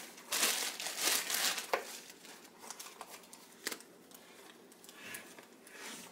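Clear plastic bag crinkling as a fleece vest is pulled out of it, loudest in the first second or so, then quieter rustling with a couple of sharp clicks.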